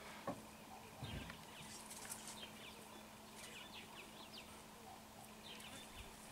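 Faint wild bird chirps and short calls scattered through quiet bush, over a faint steady low hum, with a soft thud near the start and another about a second in.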